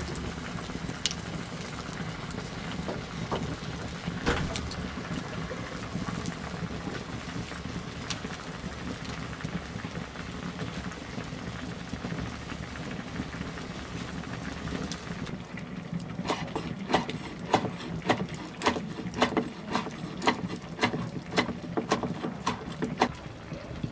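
Lasagna sauce bubbling and sizzling in a clay baking dish, with soft crackles from a wood fire. About fifteen seconds in, a large knife starts chopping chives on a wooden board: a quick run of sharp chops, about two or three a second.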